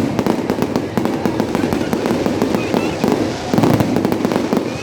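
Fireworks going off: a dense run of sharp crackling pops with a heavier boom about three and a half seconds in.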